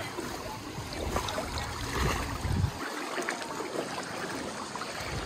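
Water lapping and splashing. A low rumble sits under it for the first half and stops about three seconds in.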